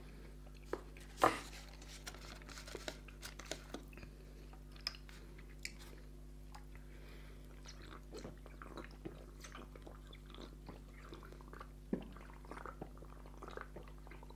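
Close-miked mouth sounds of a man chewing and then drinking lassi from a carton: soft clicks, smacks and swallows throughout, with one louder knock about a second in.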